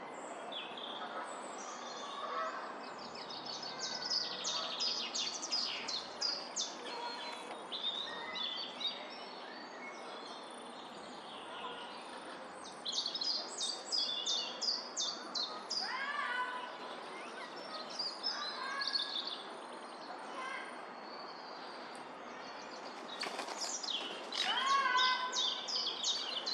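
Birds singing and calling over steady background noise: bursts of rapid, high trills lasting a couple of seconds each, and a few short calls that slide downward in pitch.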